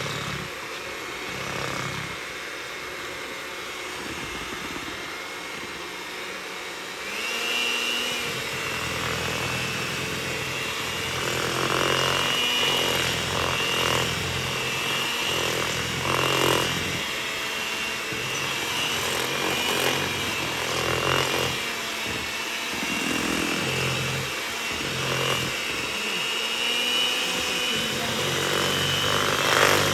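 Electric hand mixer running, its beaters churning a thick cream cheese and peanut butter pie filling in a plastic bowl. It gets louder about seven seconds in, with a high steady whine, and swells now and then after that.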